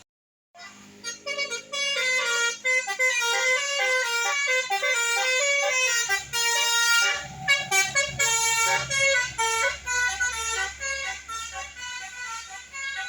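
Indonesian bus 'telolet' multi-tone air horn playing a fast melody of quickly shifting tones, starting about half a second in. A low engine rumble comes in about halfway through.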